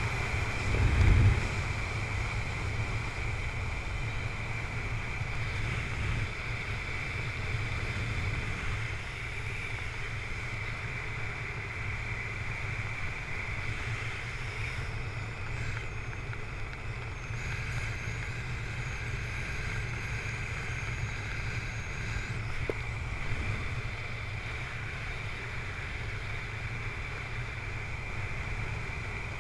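Steady wind rushing over the camera microphone of a skydiver flying under an open ram-air parachute canopy, with a louder gust about a second in.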